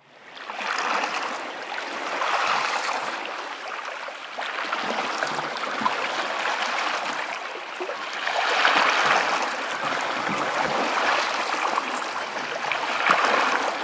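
Small Black Sea waves lapping at the shore, the wash swelling and easing every few seconds. It fades in over the first second.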